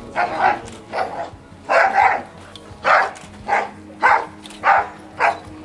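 A dog barking repeatedly at a decoy in a bite suit: about ten sharp barks, roughly half a second apart.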